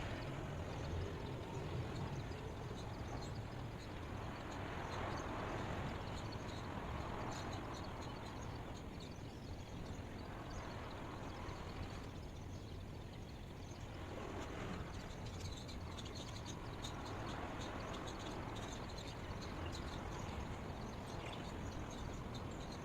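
Steady ambient outdoor noise: an even hiss with a low rumble underneath that swells and eases slowly, with no distinct events.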